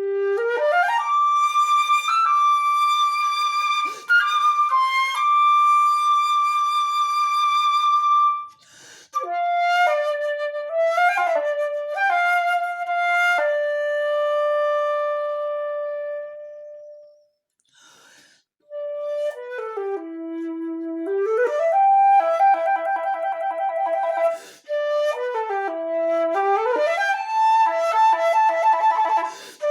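An unaccompanied concert flute plays long held notes and quick runs, with wide sweeping arpeggios and vibrato later on. The phrases are separated by short breaths, with a longer pause a little past the middle.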